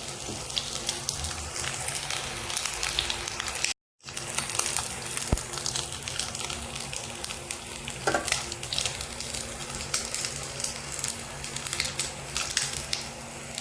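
Battered fish pieces shallow-frying in hot coconut oil: a steady sizzle full of quick crackling pops. The sound drops out completely for a moment about four seconds in.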